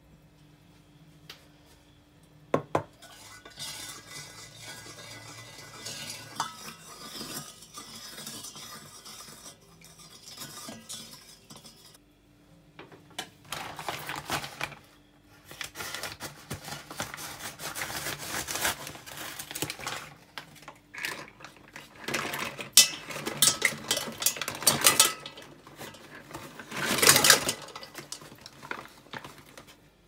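A spoon and a stainless steel pot clinking and scraping while salt is stirred into water, with louder clattering bursts in the second half as clams are tipped into the pot.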